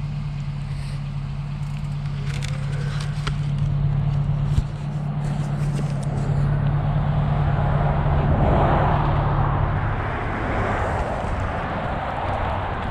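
A motor vehicle's engine running with a steady low hum that fades out about ten seconds in. A rushing noise swells over it about eight seconds in.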